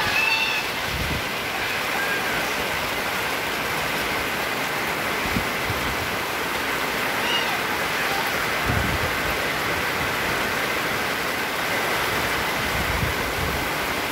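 Heavy rain falling steadily on tarpaulin stall awnings and a flooded paved street, with a few dull low thumps.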